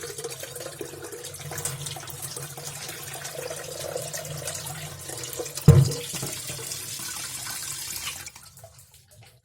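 Water running from a tap into an electric kettle, with one sharp knock about two thirds of the way through; the flow stops near the end.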